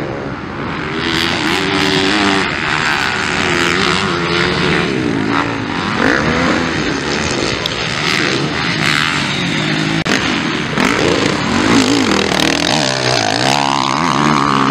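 Motocross bikes racing on a dirt track, their engines revving up and down over and over as the riders work the throttle and shift gears. Near the end one engine revs up sharply.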